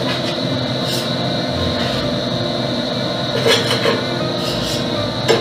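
Steady mechanical hum of a commercial kitchen's ventilation, with a few short metal clinks of pot and utensil, a couple about halfway through and one just before the end.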